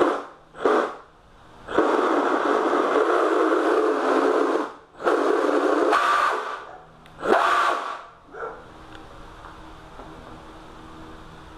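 RC hydroplane's electric motor throttled up on the bench, spinning an ungreased flex shaft: two quick throttle blips, a run of about three seconds, a shorter run and a last blip, then it drops back to a low steady hum.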